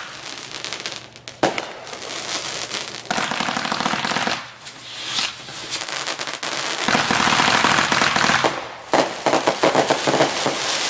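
A 39-shot consumer firework cake firing: sharp bangs, then long runs of rapid popping and crackling that come in several waves.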